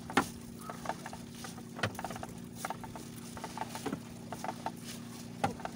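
Wet fishing net being hauled by hand over the side of a wooden outrigger boat: water patters and drips off the mesh, with scattered sharp knocks and short squeaks of the net against the hull. A steady low hum runs underneath.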